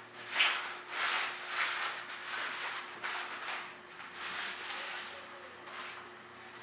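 Cloth rod sleeve being slid off a popping rod: fabric rubbing and swishing along the rod in a series of irregular strokes, the loudest about half a second in.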